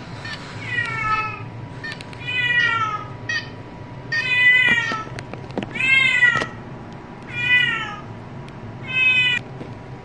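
Domestic cat meowing six times in a row, about every second and a half, each meow sliding down in pitch at the end.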